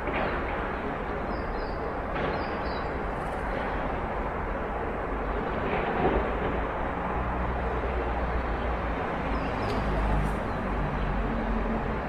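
City inner-yard ambience: a steady wash of distant street traffic with a few faint knocks. A low engine hum builds in the second half.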